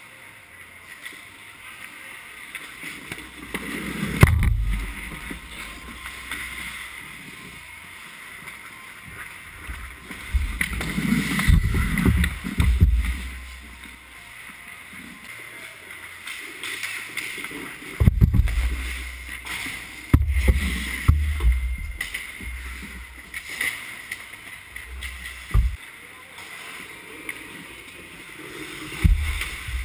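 Ice hockey play heard from inside the goal: scattered sharp clacks of sticks and puck and heavy low thuds of the goalie's pads and skates on the ice close by, over a steady rink hum.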